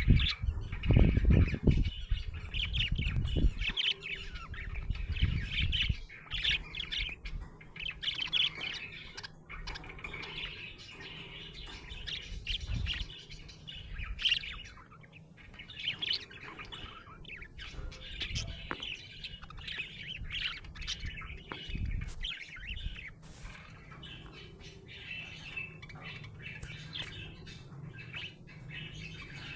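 Budgerigar chattering and chirping without pause, a dense run of quick warbled chirps and squawks. Low thumps sound under the chirping during the first few seconds.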